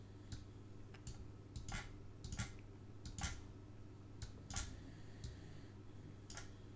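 Computer mouse button clicking about a dozen times at uneven spacing, sharp and light, over a faint steady low hum.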